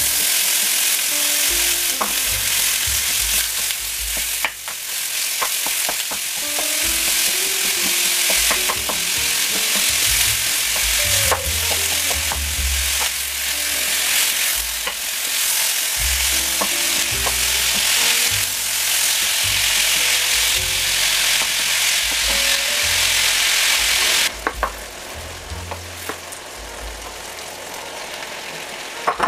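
Ground beef sizzling hard in a hot nonstick pan, stirred and broken up with a wooden spoon that clicks and scrapes against the pan. About 24 seconds in, the sizzle drops to a quieter hiss.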